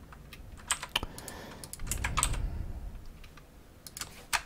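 Computer keyboard keystrokes and mouse clicks, scattered and irregular, with a small cluster about two seconds in and a few more near the end.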